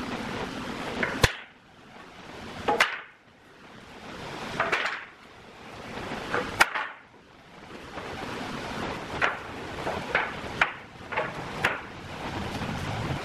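Loose pallet-wood boards knocking and clattering against each other as they are pulled off a metal rack and gathered into a bundle: a sharp wooden knock every second or two, with the scrape of boards sliding in between.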